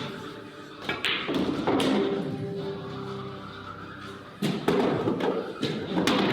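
Pool balls knocking: the cue tip striking the cue ball and balls clicking together, a few sharp knocks a second or more apart, over background music.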